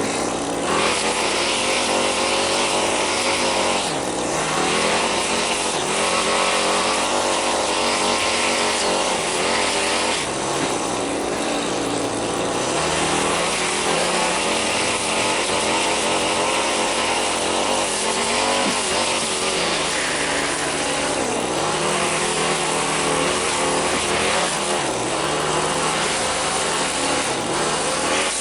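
Small gasoline engine of lawn-care equipment running steadily, its pitch shifting up and down as the engine speed changes.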